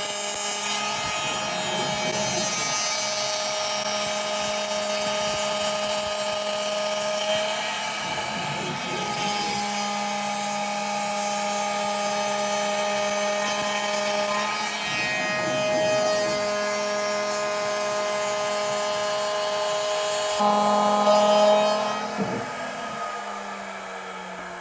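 CNC router spindle driving a face-milling (surfacing) cutter across a wooden block to plane about 1 mm off the top. It gives a steady high whine with a rasping cutting noise throughout. Near the end the cutting stops and the whine falls away in pitch.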